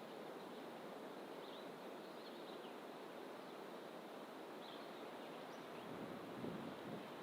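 Steady outdoor noise wash, typical of distant ocean surf, with a few faint, short high bird chirps scattered through; the noise swells briefly about six seconds in.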